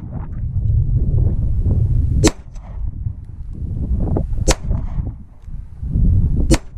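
Three pistol shots about two seconds apart from a 9mm Smith & Wesson Shield firing 125-grain cast lead handloads.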